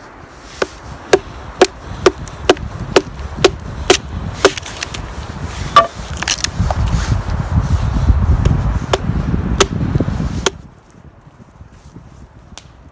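Wood being chopped: sharp, regular blows about two a second for a few seconds, then more scattered strikes over a rising low rumble. All of it cuts off suddenly near the end.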